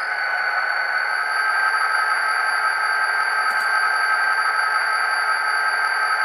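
HO-scale Intermountain SD40-2W's ESU LokSound Select decoder playing its EMD diesel sound file through the model's small speaker: the locomotive sound standing at idle, a steady hissy engine sound with a high, level whine.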